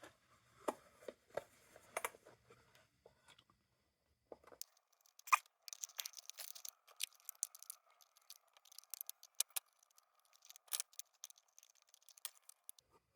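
Scattered small clicks, taps and scrapes of lantern parts being handled and fitted together by hand during reassembly, with a faint steady tone in the background from a few seconds in.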